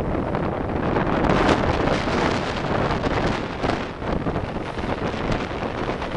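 Heavy wind buffeting the microphone of a camera on a moving open vehicle, over a steady rush of road and vehicle noise.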